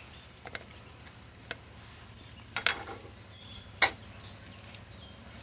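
Metal pie iron clinking and clacking as it is handled, a few scattered knocks with the sharpest metallic click about four seconds in.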